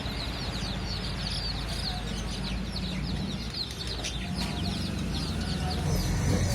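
Many small birds chirping and peeping together: a dense chorus of short, high falling chirps, over a low steady rumble.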